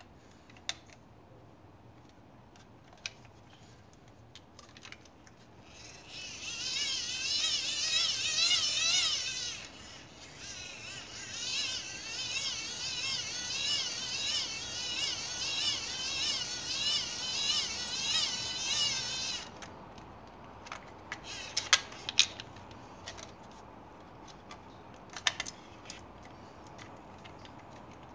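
Hand-crank dynamo of a small emergency radio being wound: a whine that rises and falls rapidly in pitch with the turning, in two spells with a short break, charging the radio. A few sharp clicks follow near the end.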